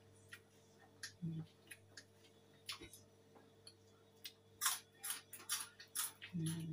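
Eating from a rice bowl with a spoon: scattered small clicks and smacks, thickest in the last two seconds. A short hummed 'mm' comes about a second in.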